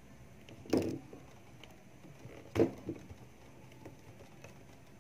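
Two dull knocks, about a second in and again past the middle, with a few faint clicks between: handling noise as the camera is moved in closer over the workbench.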